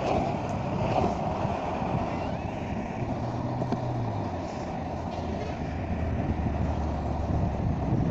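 Wheels of a plastic cruiser skateboard rolling over asphalt, a steady rumbling road noise. A low hum joins about three seconds in.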